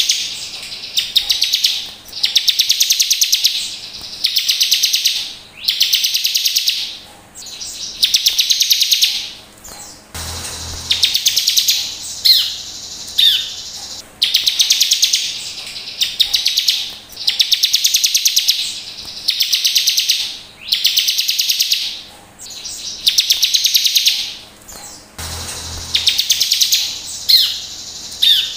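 Bar-winged prinia (ciblek) singing: fast, buzzy trilled phrases about a second long, repeated every two seconds or so, with short sharp sweeping notes between them.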